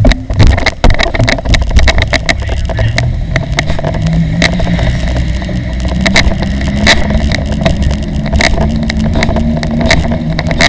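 A run of knocks and clatter in the first two seconds as the older girl climbs into a bicycle child trailer, then a steady low rumble of wind on the microphone and wheels on the road as the bicycle tows the trailer along, with a few scattered clicks.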